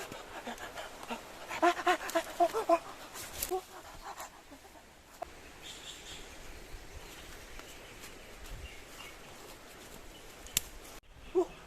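A quick series of short, high-pitched animal cries, about half a dozen in a row a couple of seconds in, then fainter background with a single sharp click near the end.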